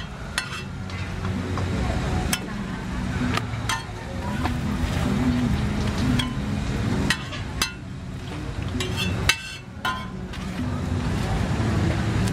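Metal spatula tapping and scraping on a flat iron roti griddle as a roti is pressed flat, giving irregular sharp clicks, over a steady low street rumble.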